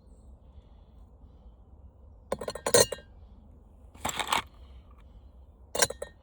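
Hard scrap parts from a dismantled floor fan clinking and clattering as they are handled and dropped into a container, in three short bursts.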